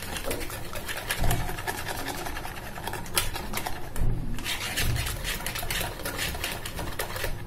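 Wire whisk beating thick gram-flour (besan) batter in a bowl: a rapid, steady rattle of wire strokes scraping through the batter and against the bowl, the batter being beaten smooth to work out lumps.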